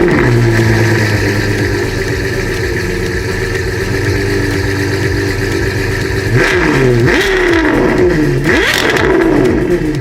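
Car engine idling steadily, then revved three times from about six seconds in, each rev rising and falling back.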